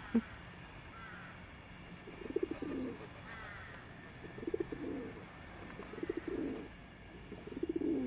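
Feral pigeons (rock doves) cooing: a low, throaty, pulsing coo repeated about four times, each call lasting under a second, with short pauses in between.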